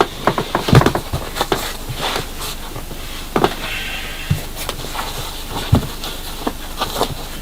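Things being handled indoors: irregular knocks, clicks and rustling, with a few louder knocks spread through.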